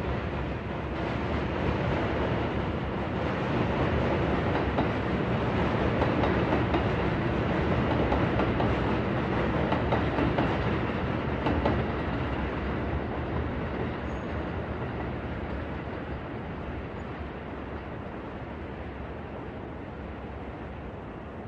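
City night ambience with a train passing. Its rumble builds to a peak about halfway through, with a little clatter near the loudest point, then slowly fades.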